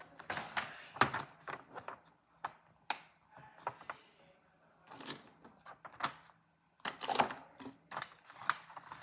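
Writing by hand on paper at a tabletop: a run of irregular taps and short scratches from the pen on the paper.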